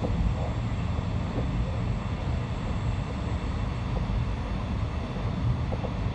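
Suburban electric train running between stations, heard from inside the carriage: a steady low rumble of wheels on the rails with a few faint knocks.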